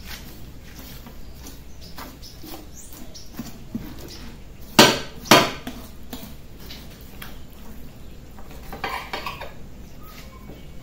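A kitchen knife cuts and scrapes through raw pork, separating the leg from a half pig carcass, with quiet slicing and scraping. About five seconds in come two loud, sharp knocks about half a second apart.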